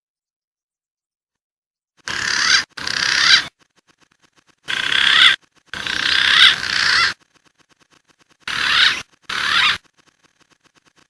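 Green pigeon (punai) calls: loud, wavering whistled notes in short bursts, each swelling louder, coming in three groups of two or three bursts, starting about two seconds in.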